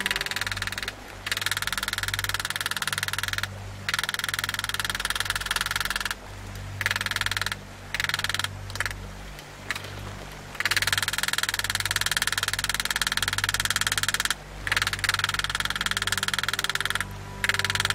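A power engraving tool buzzing against steel plate in stop-start bursts of about one to four seconds, with a steady low hum underneath.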